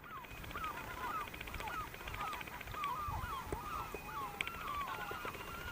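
Seagulls calling over and over, a rapid series of short calls that bend in pitch, two or three a second. They are alarm calls from birds disturbed near their nesting island.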